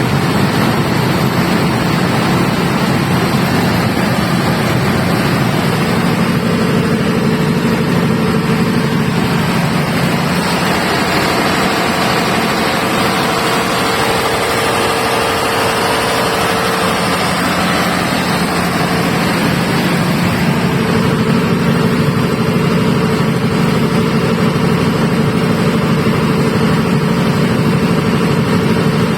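Diesel engine of a 350 kVA Iveco generator set running steadily.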